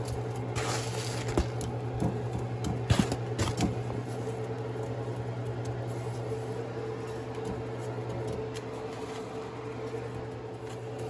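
Steady low mechanical hum with a fainter higher tone beside it, and a few soft rustles and taps in the first few seconds as sugar-coated dough pieces are handled on a foam plate and dropped into a bundt pan.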